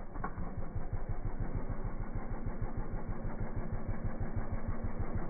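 Apollo pit bike's engine running steadily at low revs, an even, fast throbbing beat. A short click comes just after the start.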